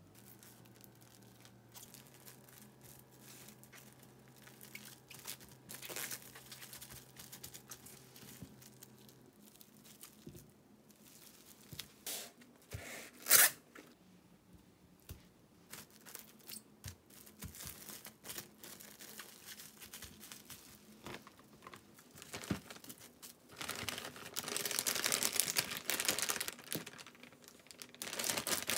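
Plastic cling film crinkling and rustling as hamburg patties are wrapped by hand, with one brief, sharp, loud crackle about halfway. Near the end comes a dense stretch of plastic rustling as the wrapped patties are packed into a zipper freezer bag.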